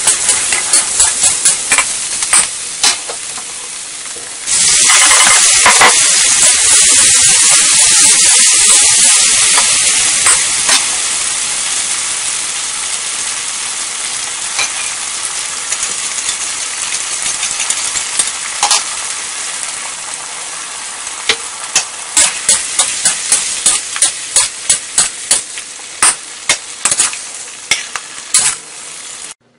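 Food sizzling in a hot metal wok while a metal spatula scrapes and knocks against it in quick strokes. About four and a half seconds in the sizzle suddenly gets much louder as the shrimp are added, then slowly fades under steady stirring, with a run of sharp spatula strikes near the end.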